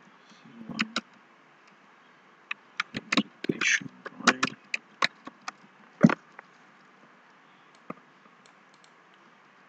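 Typing on a computer keyboard: an irregular run of quick key clicks, busiest a few seconds in, over a faint steady hiss.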